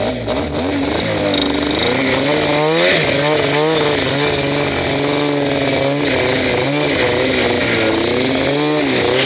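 Snowmobile engine running under way, its pitch rising and falling as the throttle is opened and eased.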